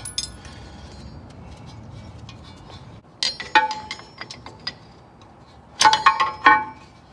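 Metal clinks and taps of a steel parking brake shoe and its hold-down pin and keeper being fitted onto the backing plate: one clink at the start, a few a little after three seconds in, and a quick cluster near six seconds, each ringing briefly.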